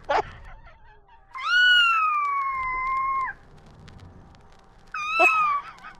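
Cat meowing: one long, drawn-out meow that rises and then slowly sinks in pitch, followed near the end by a shorter meow.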